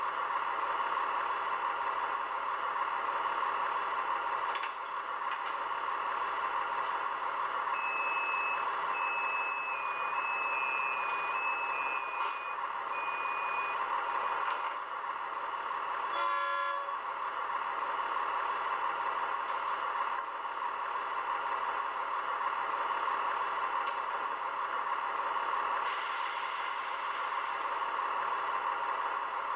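Onboard sound decoder of a Roco H0 model DB class 628 diesel railcar, heard through its small loudspeaker: the diesel engine idles steadily while the door sequence plays, a run of two-tone door warning beeps, then a short burst of several tones. Near the end there is a hiss of air lasting about two seconds.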